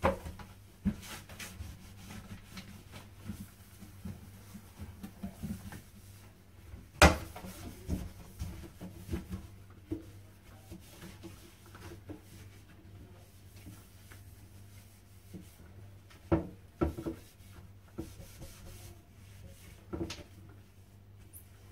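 Antibacterial wipe rubbing over a ceramic toilet and its plastic seat, with occasional knocks as the seat and lid are handled, the sharpest about seven seconds in. A steady low hum runs underneath.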